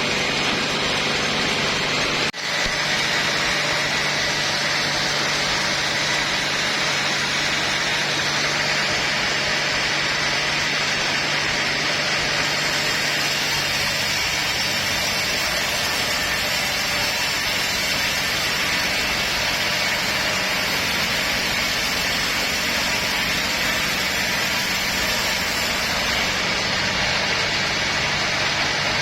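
Sawmill machinery running steadily while sawing teak logs: a dense, loud noise of the saw over a steady low engine hum, with a brief break about two seconds in.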